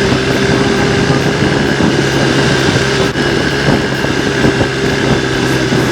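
Motor vehicle running at a steady speed: an even engine drone with constant-pitched hum over road and wind noise.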